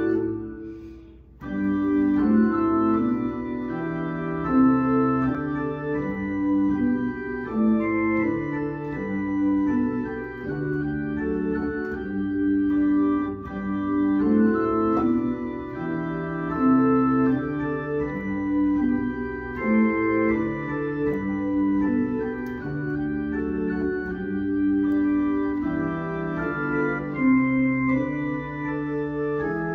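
Electronic organ playing a hymn in sustained full chords, with bass notes played on the pedalboard moving beneath them; the full sound comes in about a second and a half in.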